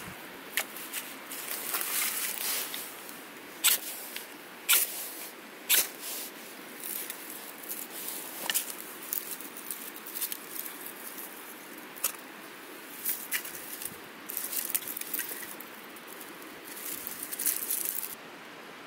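Dry sticks clicking and snapping as they are laid down and handled, and a small fire of dry tinder and twigs crackling and hissing as it catches. There are sharp snaps several times, and the crackle is strongest near the end.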